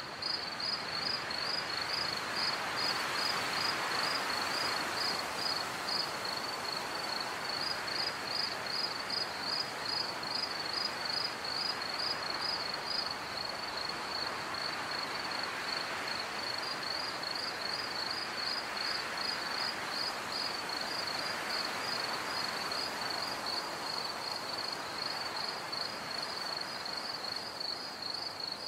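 Crickets chirping in a steady high-pitched pulse, a few chirps a second, pausing briefly now and then, over a soft hiss that swells and fades like a night breeze.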